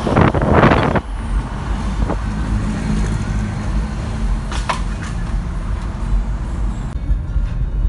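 Car driving in traffic, heard from inside the cabin: a steady low rumble of engine and road. A loud rush of noise fills the first second, and there is a short tick near the middle.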